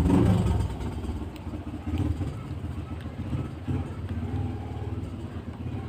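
Low, uneven rumble of a motor vehicle engine in the background.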